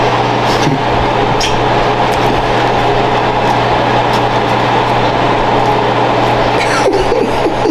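A loud, steady mechanical hum and rushing noise that does not change, with a few faint clicks over it.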